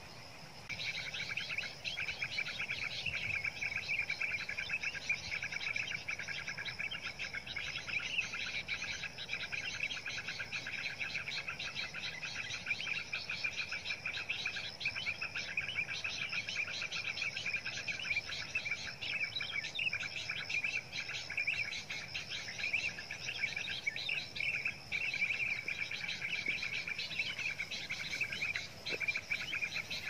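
Bird calls of the perenjak (prinia) kind played through a Bluetooth speaker as a trapping lure. A rapid, unbroken high twittering and trilling starts abruptly about a second in and keeps an even loudness.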